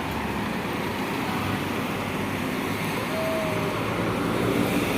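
Road traffic: engines and tyres of passing vehicles. A vehicle's engine grows louder toward the end, and a short single tone sounds about three seconds in.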